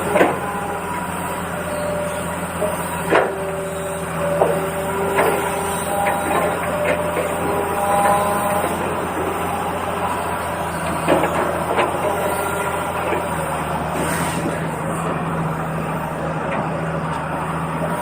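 Small electric motors of radio-controlled trucks and an excavator whirring steadily, with scattered clicks and knocks and short tones at a few different pitches.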